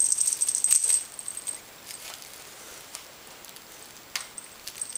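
A feather wand cat toy jingles as a kitten bats and bites at it. There are quick bursts of high metallic jingling through the first second and a half, a single sharp jingle about four seconds in, and more jingling near the end.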